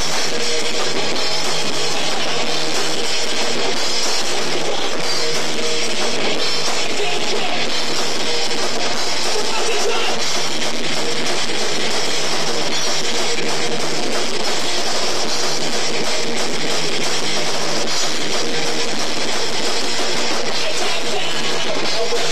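Live rock band playing loud and steady on drum kit and electric guitars.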